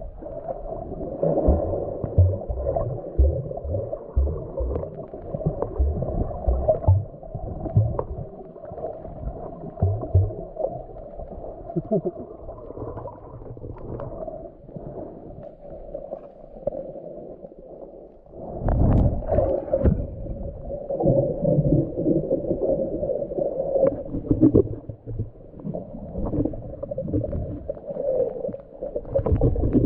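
Muffled underwater sound recorded through an action camera while snorkeling: water rushing and sloshing over the camera, with irregular low thumps. It quietens for a few seconds past the middle and grows louder again about two-thirds of the way in.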